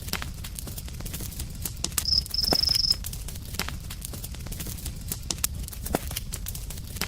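Campfire burning with frequent sharp crackles and pops over a low steady rumble. About two seconds in, a brief high-pitched steady tone sounds for under a second.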